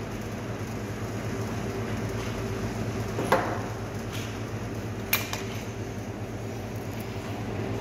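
Steady machine hum, with two sharp clicks, about three and five seconds in, from a PET bottle of carbonated water being handled: its screw-on pressure-gauge cap comes off and a dial-thermometer cap goes on.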